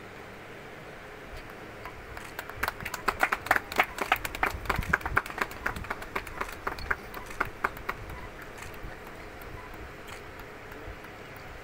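Audience applauding: scattered hand claps build about two seconds in, are heaviest around four seconds, and die away by about eight seconds, over a steady outdoor background hum.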